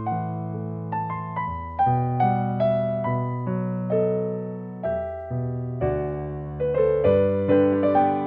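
Background solo piano music: a melody of struck notes that ring and fade over held low bass notes.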